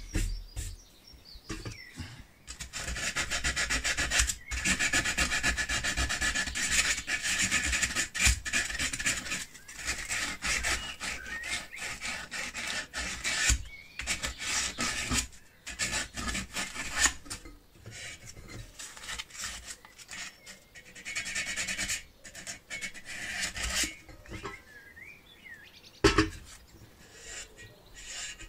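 Hands scraping and rubbing against the aluminium body of a camping stove while the rusty burner tube is worked down into its well. A long spell of steady scraping comes first, then shorter scrapes with small knocks.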